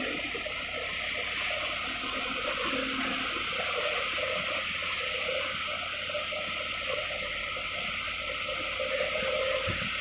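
Steady rushing of water, with a fainter wavering, warbling sound beneath it.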